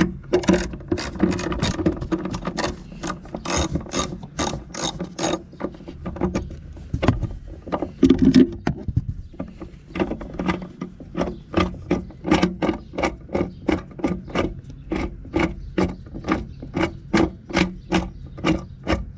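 Ratchet wrench with a 13 mm socket clicking steadily as the battery hold-down bolt is backed out, about three clicks a second. The clicking breaks off briefly around six seconds in, then resumes at a slightly slower rate.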